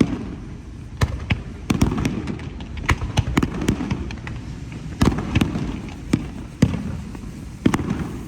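Display firework shells bursting overhead: irregular sharp bangs roughly one a second, with a low rumbling echo between them.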